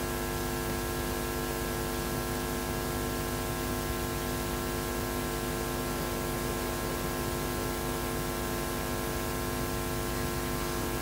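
Steady electrical hum and hiss: several constant buzzing tones under an even hiss, unchanging throughout.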